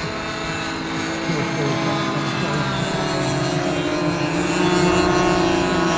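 Several glow-fuel (nitro) model airplane engines of 46 to 55 size, driving propellers as a formation of RC aerobatic biplanes flies overhead, droning together. The drone gets louder and a little higher in pitch about two-thirds of the way through.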